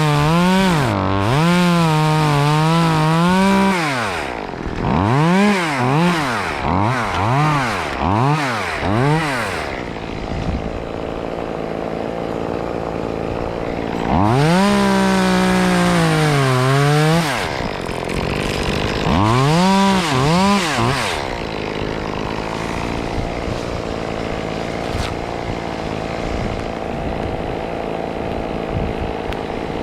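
Chainsaw engine revving up and down in repeated bursts, its pitch rising and sagging with the throttle. There are held runs at the start and about halfway, and short quick revs between them. In the last third the revving stops and a steadier, quieter noise goes on.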